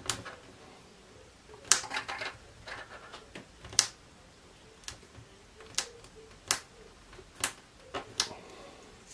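Fingers pressing and spreading Blu Tack onto a thin milk-bottle plastic strip on a wooden desk, making about ten sharp clicks and taps at irregular intervals.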